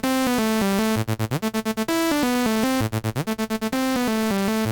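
Synthesizer loop played back through a tape-saturation plugin driven hard: a bright, buzzy lead line stepping between notes, broken twice by stretches of fast repeated stabs.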